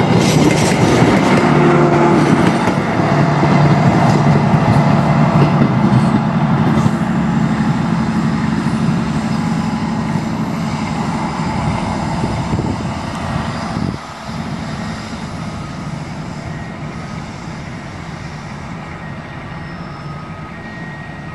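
A diesel-hauled passenger train's rear coaches and power car running past on the rails, a dense rumble with a steady low hum, then fading as the train moves away; the level drops suddenly about fourteen seconds in and a quieter rumble remains.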